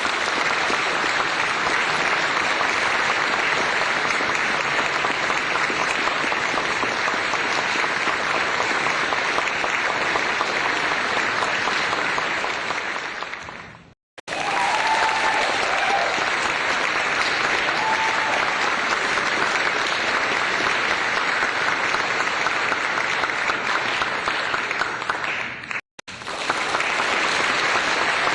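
Applause, many people clapping densely and steadily. It breaks off suddenly into silence twice, about 14 s and 26 s in, and starts again each time as a new applause recording follows.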